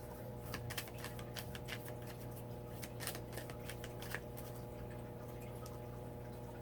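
Cards being handled, a scatter of light clicks and ticks that thin out after about four seconds, over a steady electrical hum.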